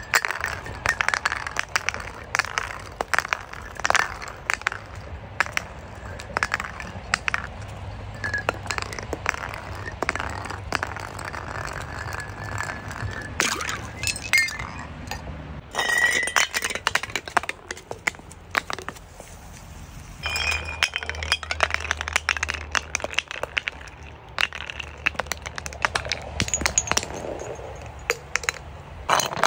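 Bottles knocking and clinking as they roll and bounce down concrete steps, in several separate runs of rapid sharp strikes. A glass bottle breaks on the steps near the end.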